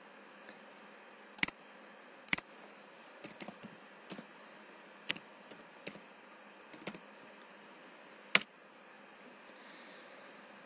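Computer keyboard keys pressed one at a time as a short search term is typed: about a dozen sharp, irregularly spaced clicks, with one louder keystroke after about 8 seconds.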